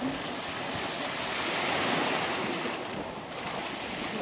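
Surf washing on the beach: a steady rush of waves that swells about a second in and eases again.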